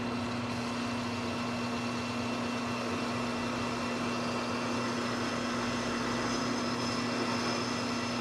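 Manual metal lathe running steadily with a hum while a radius insert plunge-cuts an undercut into a steel shoulder bolt. About four and a half seconds in, a thin high-pitched whine from the cut joins in.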